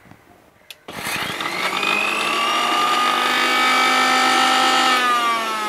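Electric mixer grinder (mixie) running with its large jar, grinding curry leaves, mint, coriander leaves and shallots into a paste. The motor starts about a second in, rises to a steady whine, and near the end is switched off and winds down, its pitch falling.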